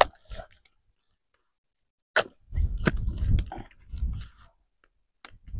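Wet mud being packed by hand into a wooden brick mould: a sharp click about two seconds in, then a couple of seconds of wet squelching and slapping.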